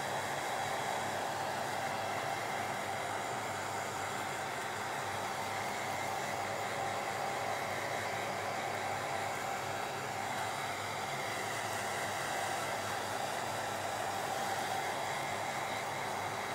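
Handheld hair dryer running steadily on low heat, blowing on a damp glued page to dry it: an even rush of air with a faint steady motor whine.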